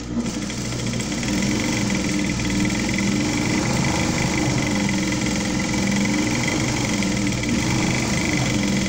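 Industrial Singer sewing machine running steadily at speed, its needle making a rapid even clatter over the motor's hum as it stitches a gathered fabric ruffle strip. It starts up right at the beginning.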